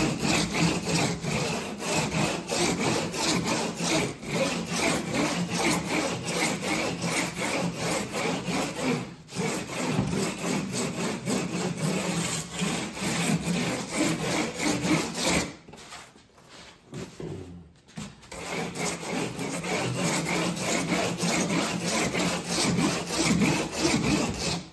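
A woodpecker perforating tool, a small wheel of spikes, rolled back and forth over a foam core sheet: a dense, rasping crackle as the spikes punch tiny holes in the foam. It stops for a few seconds about two-thirds of the way through, then carries on.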